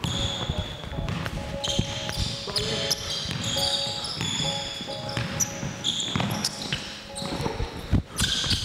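Basketball game on an indoor court: the ball bouncing in repeated low knocks, and sneakers squeaking on the floor in many short, high squeals.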